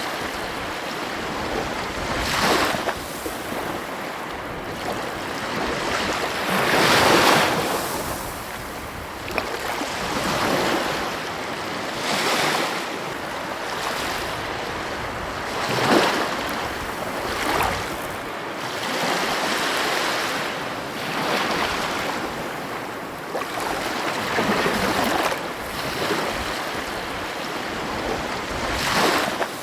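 Ocean waves breaking and washing onto a beach: a steady rush of surf that swells every few seconds as each wave comes in.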